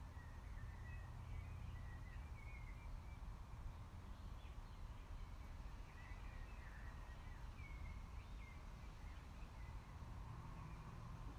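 Faint outdoor ambience: a steady low rumble with small birds chirping and warbling on and off.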